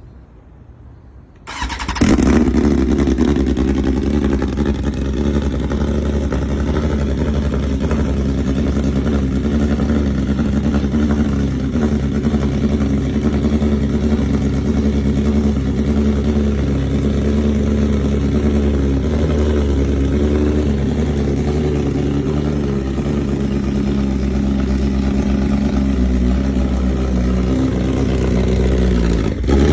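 A 2022 BMW S1000RR's inline-four engine, breathing through a loud COPO racing exhaust, starts from cold about a second and a half in, then runs at a steady idle.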